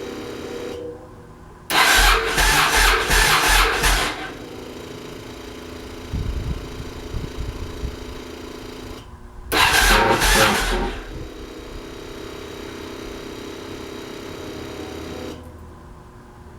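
2000 Yamaha Road Star's V-twin being started: two loud, pulsing bursts of cranking and firing, the first about two seconds long and the second about a second and a half, with a steadier, quieter hum between them.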